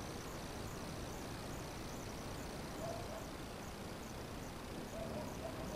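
Quiet evening lakeside ambience: a faint high chirp repeating about twice a second over a steady background hush, with a few short lower calls about three and five seconds in.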